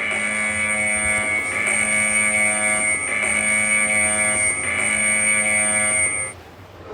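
Emergency Alert System–style alarm tone: a harsh, steady buzz made of several fixed pitches at once, cutting off about six seconds in.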